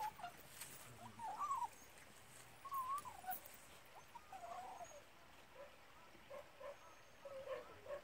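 A dog whining: a string of short, thin whines that rise and fall in pitch, repeating every second or so.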